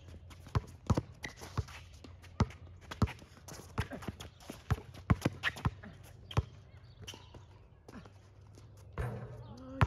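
Basketball dribbled hard on an outdoor court in a run of irregular bounces, thinning out as the ball is shot. A voice calls out near the end, and one sharp knock comes right at the end.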